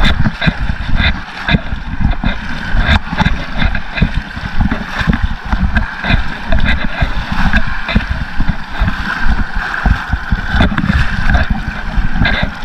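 Shallow surf water sloshing and gurgling close by, with wind buffeting the microphone in an uneven, gusty rumble.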